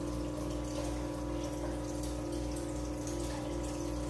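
Running aquarium: a steady pump hum under a constant fizz and trickle of bubbles rising from an air stone and breaking at the surface.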